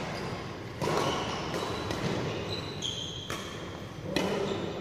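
Badminton rally: rackets hitting the shuttlecock with sharp smacks, once about a second in and twice close together near the end, each echoing in the hall. Short high squeaks, typical of court shoes on the floor, come between the hits.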